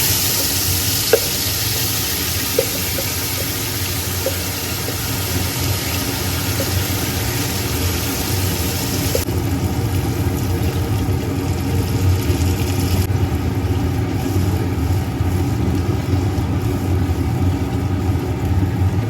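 Ground masala paste frying in hot oil in a karahi: a strong sizzle that drops a step about nine seconds in and again about thirteen seconds in, over a steady low mechanical hum. A few light clinks of a spoon against the pan come in the first few seconds.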